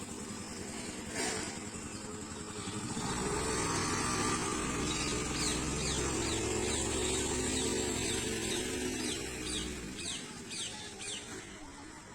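A motorcycle engine running, growing louder about three seconds in and fading away near the end, like a motorbike passing. Short high chirps come over it in the second half.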